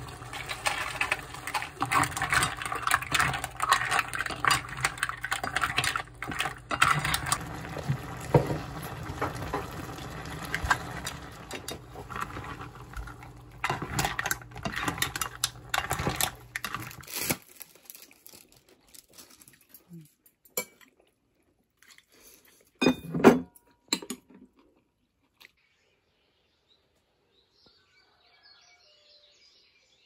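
Mussels and tomato-onion sauce cooking in a stainless steel pot, bubbling and hissing while a utensil stirs and tosses spaghetti, clinking and scraping against the pot. It stops about seventeen seconds in, leaving a few separate clinks and near quiet.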